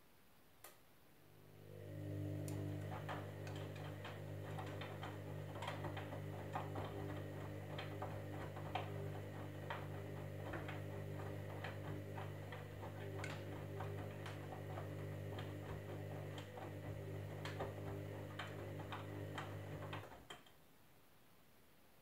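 Candy Grand'O Vita front-loading washing machine turning its drum during the wash: the drum motor hums steadily, starting about a second in and stopping abruptly near the end. Irregular light clicks come from the load tumbling in the drum.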